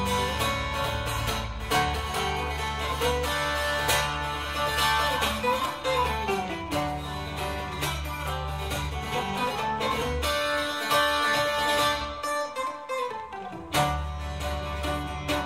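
Acoustic guitar played solo and instrumental, a quick plucked melody over low bass notes that ring on underneath. Near the end the bass drops away for about a second and a half, then comes back.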